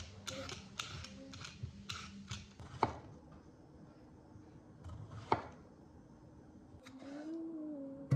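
A vegetable peeler scraping down a carrot in quick repeated strokes, then two sharp knocks of a chef's knife coming down on a wooden cutting board, the second about two and a half seconds after the first.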